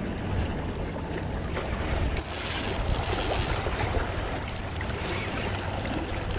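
A Penn spinning reel being cranked to bring in a hooked fish, under wind buffeting the microphone and waves washing on rocks. A brief higher whir starts about two seconds in and lasts a second or so.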